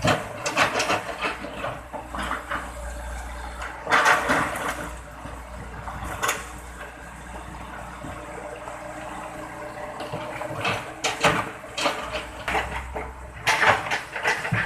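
Hitachi EX120-5 excavator's diesel engine running steadily under load, with bursts of water splashing and sloshing as it works in the river, the loudest about four seconds in and again near the end.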